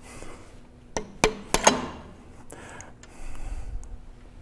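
Four quick mallet knocks on a steel bearing-pusher plate and threaded rod, the last two ringing briefly, then a short rustle of the parts being handled.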